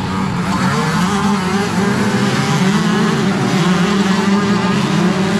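Motocross bike engines running at high revs, the note rising and falling.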